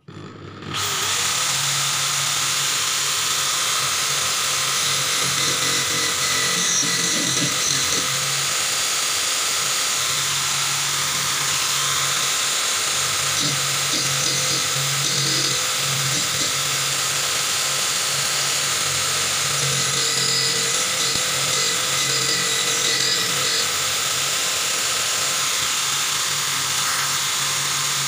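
Corded electric drill starting up about a second in and running steadily, spinning the grinding stone of a drill bit sharpener, while an 8 mm drill bit is ground against the stone in the sharpener's slot.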